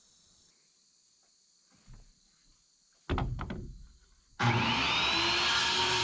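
A short knock and clatter about three seconds in. Then a circular saw starts up with a rising whine near four and a half seconds and runs steadily on, cutting through a wooden truss tail.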